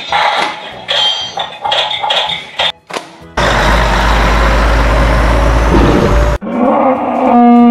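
Light music for about three seconds, then a loud, steady truck engine sound effect that runs for about three seconds and cuts off suddenly, followed by a short horn honk near the end.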